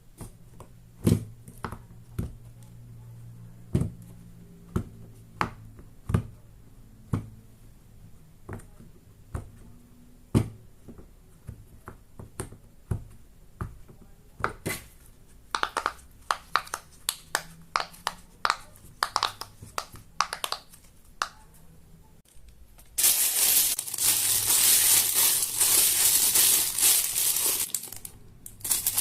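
Silicone pop-it fidget toy bubbles being pressed one by one, each giving a sharp pop, slow and spaced at first, then quicker and denser. About two thirds of the way through this gives way to a loud, continuous crinkling that breaks off briefly near the end.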